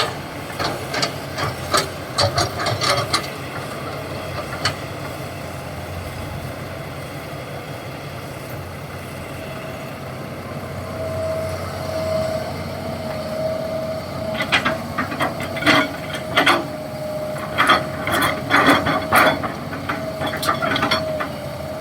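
Heavy diesel machinery running steadily, with bursts of sharp metallic clanks and knocks in the first few seconds and again through the last third. A steady high tone joins about halfway through.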